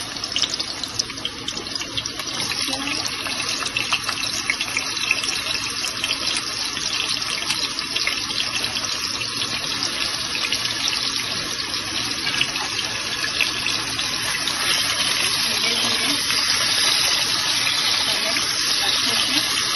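Potato slices frying in hot desi ghee in a pressure cooker pan: a steady sizzle full of small crackles, growing louder toward the end as more slices go in.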